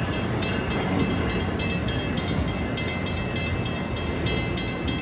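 Amtrak Amfleet passenger coaches rolling past close by, a steady rumble of wheels on rail with a rapid, uneven clatter of clicks and a thin, high, steady squeal over it.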